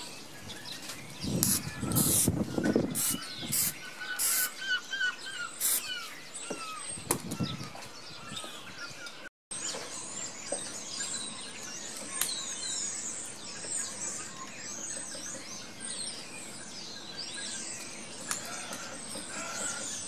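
Several short hisses from an aerosol can of spray carpet adhesive, with handling bumps, in the first half. Small birds chirp throughout; after a cut about nine seconds in, only the birdsong and outdoor background remain.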